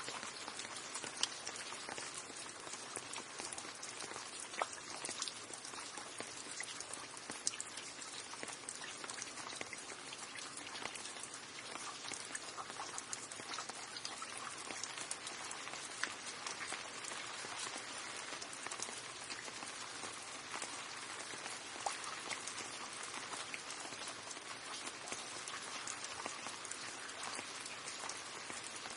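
Steady rain falling: an even hiss of rain with a dense patter of individual drops ticking, a few louder drops standing out now and then.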